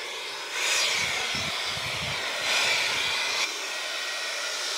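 Battery-powered electric chainsaw running with a high whine while its chain shaves bark off a tamarack (larch) log; the whine swells each time the chain bites in.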